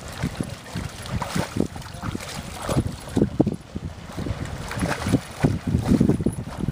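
Great Dane pawing at the bottom of shallow lake water to dig out a sunken ball: a run of irregular splashes, busiest near the end.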